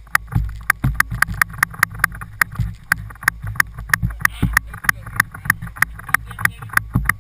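Potato gun's spark igniter clicking over and over, several sharp clicks a second at uneven spacing, without the gun going off: a misfire. A low rumble of wind on the microphone runs underneath.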